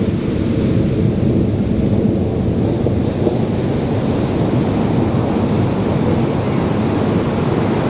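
Ocean surf on the beach with wind buffeting the microphone, a steady low rumble.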